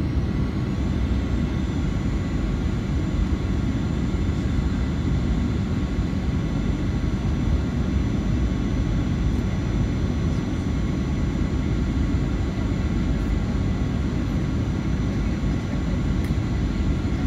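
Cabin noise inside a Boeing 737-900 with its CFM56 turbofans running: a steady low rush of engine and airflow noise, with several thin steady whines above it. One high whine rises slightly about a second in.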